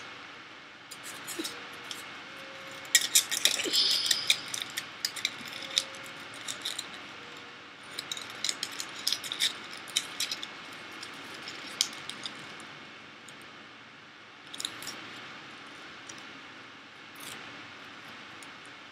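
Aluminium foil crinkling and crackling in the hands as it is folded and wrapped around a fingertip, in irregular bursts of small sharp crackles.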